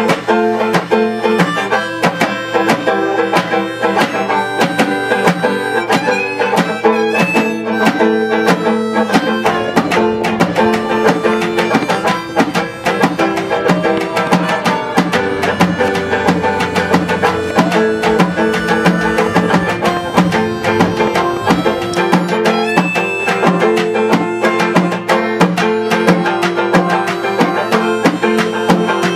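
Acoustic folk band music: plucked string instruments over hand percussion keeping a steady beat.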